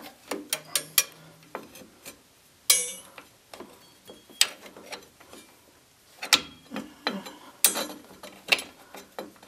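Rear drum-brake shoes and their steel springs and hardware clinking and clacking against the backing plate as they are worked into place by hand: an irregular string of sharp metallic clicks, a few of them much louder than the rest.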